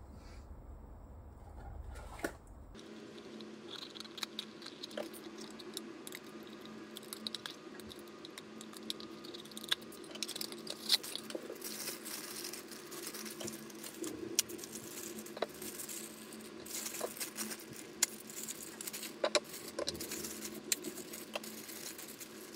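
Thin clear plastic bag crinkling and rustling as a small plastic figure piece is unwrapped from it, with scattered sharper clicks and taps.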